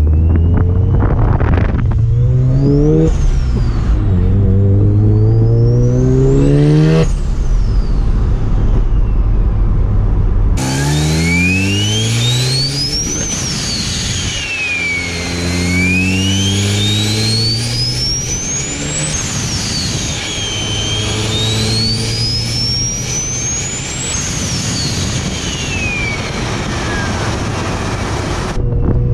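Mazda RX-7 FD twin-rotor rotary engine pulling hard through several gears. Its pitch climbs with each pull and drops at the shifts, and a single BorgWarner turbo adds a high whistle that rises and falls with boost. About ten seconds in, the sound switches to a microphone in the engine bay, where the turbo whistle is loud and clear.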